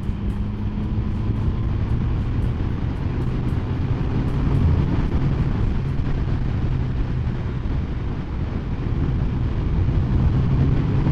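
Triumph Sprint 1050's three-cylinder engine running while the bike is ridden at a fairly steady speed, under a constant rush of wind and road noise.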